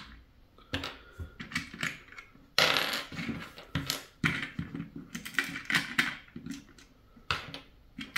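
Small LEGO plastic pieces clicking and clattering as they are handled, an irregular run of short sharp clicks with a brief rougher scrape about two and a half seconds in.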